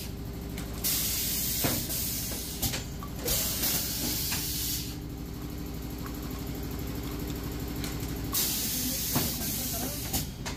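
Compressed air hissing in three bursts of about two seconds each from PET bottle blow-moulding machinery, over a steady machine hum, with a few short clicks.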